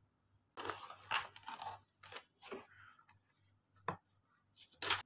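Cardboard laptop box being opened by hand: short scrapes and rustles of the cardboard lid and packing, with a sharp click about four seconds in and another scrape near the end.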